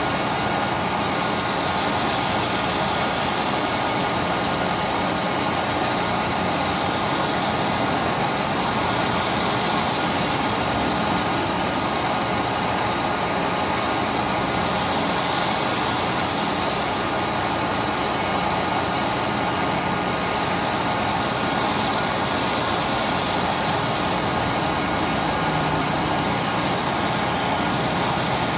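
Gas torch flame burning steadily with a continuous hiss, played on the pulley hub of a water pump to heat it loose from the bearing shaft.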